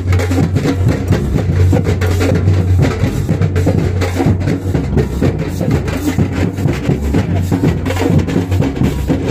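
Samba band drumming: surdo bass drums struck with mallets along with other drums, a steady, dense samba rhythm over a deep, sustained low drum tone.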